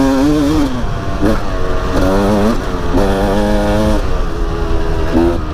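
KTM dirt bike engine under way, revving up and dropping back several times as the rider works the throttle along a dirt track.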